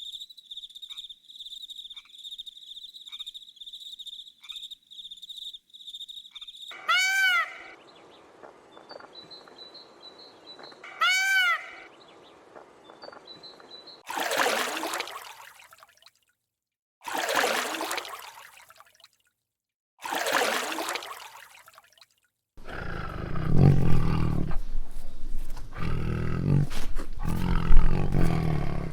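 A run of different animal sounds: first a steady high-pitched trill with faint regular ticks, then two rising-and-falling pitched calls, then three loud harsh calls of a second or two each, and from about 22 seconds a louder low, pulsing rumble.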